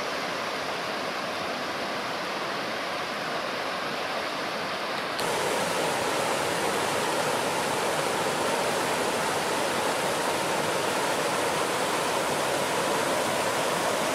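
Mountain creek rushing and pouring over a log step in a small cascade, a steady rush of water. About five seconds in, it gets louder and brighter as the sound moves closer to the falling water.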